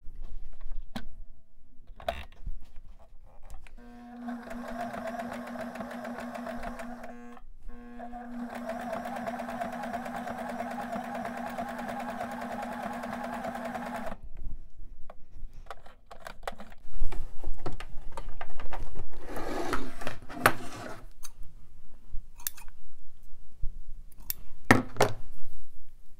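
Husqvarna Viking eXplore 160 sewing machine running steadily for about ten seconds, sewing a zigzag stitch through stretchy fabric, with a brief pause partway. Scattered clicks come before it starts, and louder irregular rustling and clicking follow after it stops as the fabric is handled and pulled free.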